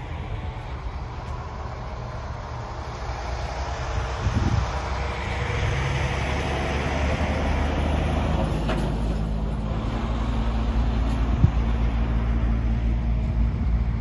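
An engine running steadily, its low hum growing louder about a third of the way in, with one short sharp click near the end.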